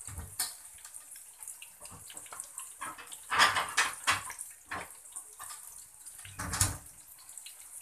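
Breaded chicken fingers and scrambled-egg strips deep-frying in a pan of hot oil: a steady hissing sizzle, with louder bursts of crackling about three and a half seconds in and again near the end.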